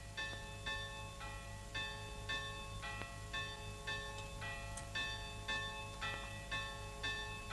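A bell struck over and over at a steady pace, about two strokes a second, each stroke ringing on into the next.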